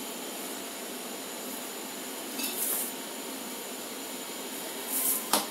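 Steady even hiss, then a steel ladle clinks once against the steel pot of kheer just before the end.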